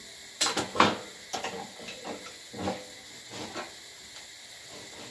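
Tools and small metal parts clattering and knocking as they are handled on a workbench: a quick run of sharp clacks about half a second in, then a few scattered knocks.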